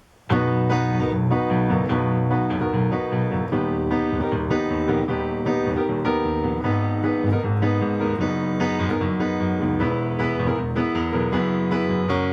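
Yamaha CP-80 electric grand piano being played, chords over a bass line, starting about a third of a second in after a brief quiet.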